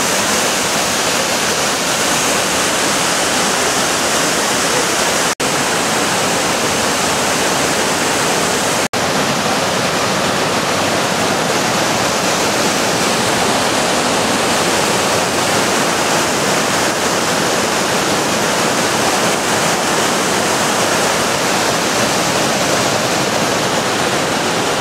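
Mountain river cascading over boulders and rock slabs: a loud, steady rush of whitewater, broken by two momentary dropouts a few seconds in.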